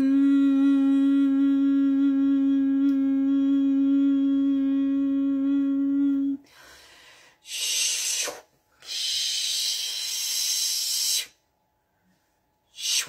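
A woman's voice humming one long, steady note for about six seconds, sliding up into it at the start. It is followed by breathy hissing exhales: a short one, then a longer one of about two and a half seconds.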